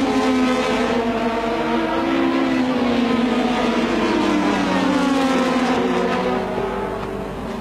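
Turbocharged V6 engines of 1986 Formula One cars running at high revs, heard together as the cars run nose to tail. The engine note sags gradually in pitch across the stretch.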